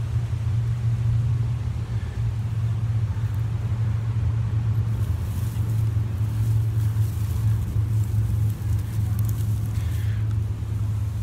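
A steady, loud low rumble at one constant pitch, with faint scattered clicks near the end.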